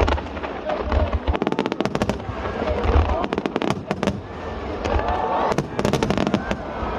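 Star Mine fireworks: heavy low booms of shell bursts and rapid strings of sharp crackling reports, overlapping one after another.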